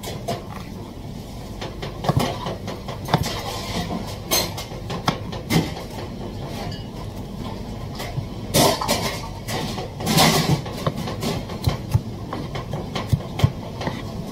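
Chef's knife slicing bell peppers on a plastic cutting board: irregular knocks of the blade striking the board, over a steady background hum. Two longer, louder noisy sounds come a little past the middle.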